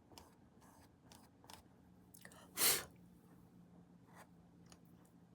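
Paintbrush making soft, short scratchy strokes of acrylic paint on a painting surface, with one short, loud breathy whoosh about two and a half seconds in.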